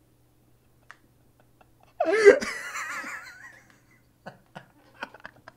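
A man laughing hysterically. It breaks out loud and wavering about two seconds in, fades, and goes on as short, breathy bursts of chuckling near the end.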